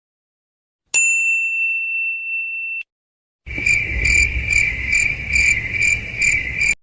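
A single bright ding held for about two seconds, cut off abruptly. After a short gap, crickets chirp at about two chirps a second over a low background hum, stopping suddenly: the 'awkward silence' crickets sound effect.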